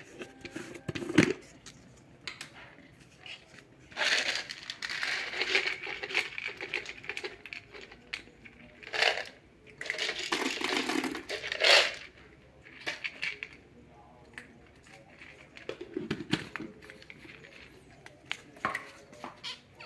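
Dry kibble rattling and rustling in a plastic gravity pet feeder, in several noisy bursts with many scattered clicks.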